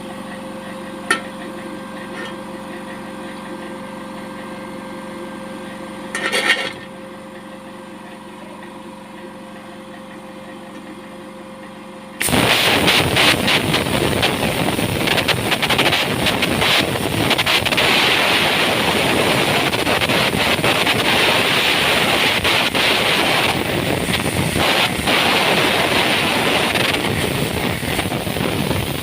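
A disc cutting machine runs with a steady hum. Just past twelve seconds its abrasive disc bites into steel plate, and the sound turns into loud, harsh grinding that goes on to the end.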